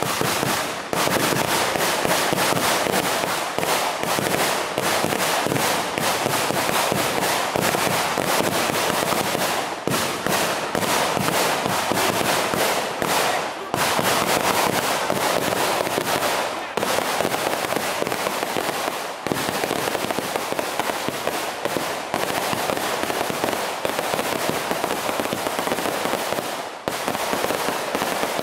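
Long strings of firecrackers hanging beneath a launching hot-air balloon going off in a dense, continuous rapid crackle, with only a few split-second lulls.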